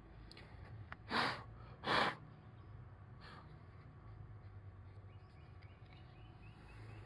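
Two short puffs of breath close to the microphone, about a second apart, with a fainter third one shortly after, over a faint steady low hum.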